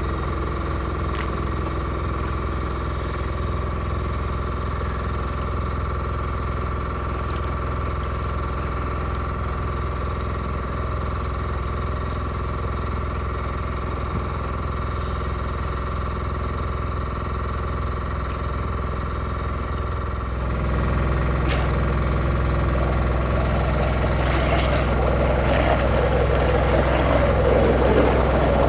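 A motor runs steadily with an even hum. After a cut about 20 seconds in the hum gets louder and deeper, and near the end water churns and splashes as thrusters stir the surface.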